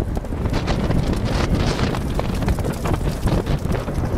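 Wind buffeting the microphone: a loud, unsteady low rumble with crackling gusts.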